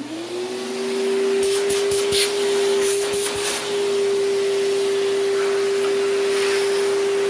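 2003 Hoover TurboPower 5000 canister vacuum switching on: its motor spins up with a rising whine that settles into a loud, steady high tone. A run of clicks comes between about one and a half and three and a half seconds in.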